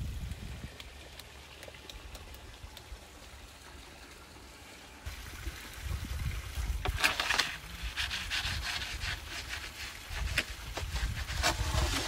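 Wooden bread peel scraping on the brick floor of a wood-fired oven as the pide is slid in and the peel is drawn back out: two rough scrapes, one about seven seconds in and one near the end, over a low rumble.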